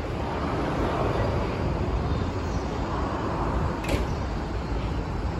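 Wind buffeting the microphone over the steady low rumble of a locomotive-hauled train still far off and approaching, with one sharp click about four seconds in.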